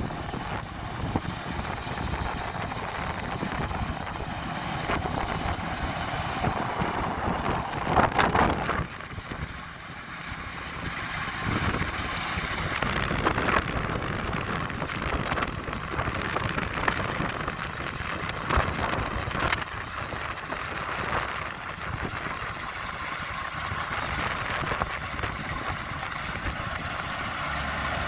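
Kubota DC-93 combine harvester running steadily in the field, a continuous mechanical drone, with wind noise on the microphone and a brief louder swell about eight seconds in.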